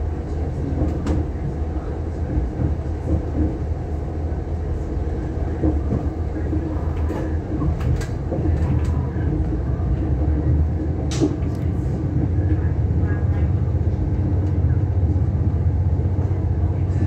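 Irish Rail 22000 Class diesel railcar heard from inside the coach while pulling away: a steady low diesel drone with wheels rumbling on the rails, and a few sharp clicks and squeaks. It gets a little louder about eleven seconds in.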